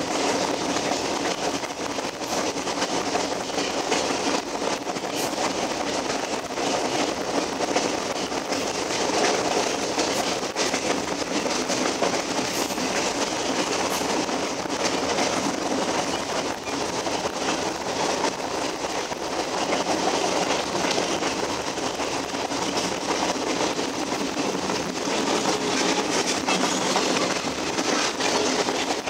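Alaska Railroad passenger train running along the track: a steady rushing noise of wheels on the rails, with many small irregular clicks throughout.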